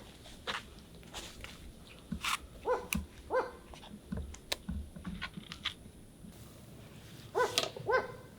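An animal's short, high yelps, two pairs of them, the second pair near the end, among scattered light clicks and knocks.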